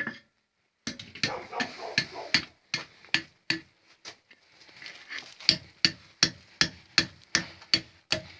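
Hammer blows on an anvil, a steady run of strikes about three a second with a short lull midway; each blow rings briefly.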